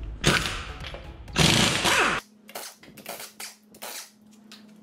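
Impact wrench hammering a car's wheel nuts loose in two bursts, the second longer, followed by lighter clicks and knocks as the nuts come off.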